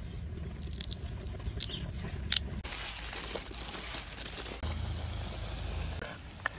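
A knife scraping and peeling the bark from a cassava root, with many sharp clicks. About two and a half seconds in, this gives way to a steady crinkly rustle of plastic-gloved hands tossing shredded cassava.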